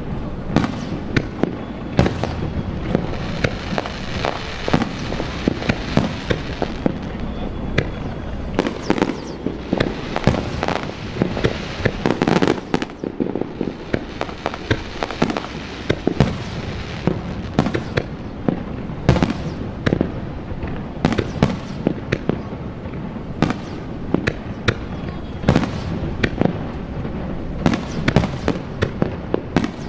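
Fireworks display: aerial shells bursting in a dense, continuous barrage of sharp bangs, several a second, over a steady rushing background.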